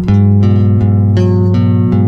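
Instrumental music: a quick run of plucked notes, one every third of a second or so, over held bass notes that shift about every second.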